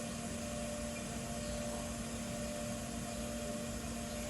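Steady machine hum with an even hiss and a constant low tone, unchanging throughout.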